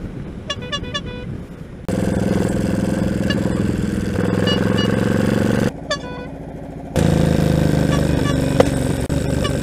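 Motorcycle horn tooting in a quick run of short beeps about half a second in. After an abrupt cut comes louder steady riding noise from the motorcycle's engine and the wind, with more short toots over it in the first loud spell.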